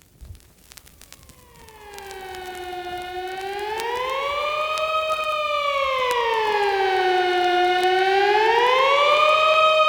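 Wailing siren effect opening the record. A single tone fades in from near silence and grows steadily louder while sliding slowly down and up in pitch, about once every five seconds. Faint vinyl clicks and crackle are heard at the start.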